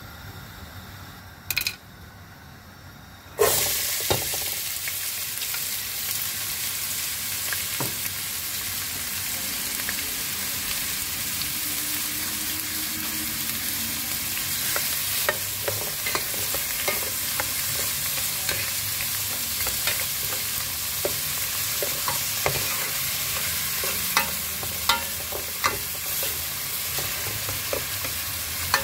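Chopped onion dropped into hot oil in a metal pot, setting off a loud, steady sizzle about three seconds in. From about halfway on, a plastic spoon stirring the onion adds many small scrapes and taps against the pot.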